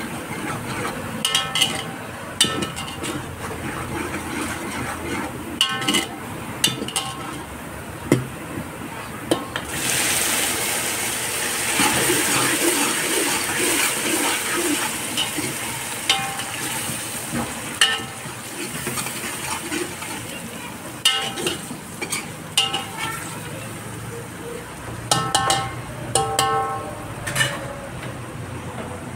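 A steel spoon stirs and scrapes in a large aluminium pot, clinking and ringing against the metal. About ten seconds in, chopped tomatoes go into the hot oil and a loud sizzle starts, then dies down over the next several seconds while the stirring goes on.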